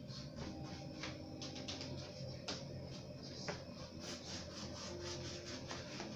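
Paintbrush scrubbing white paint onto dry twigs in short scratchy strokes, with a couple of light clicks. A steady low hum runs underneath.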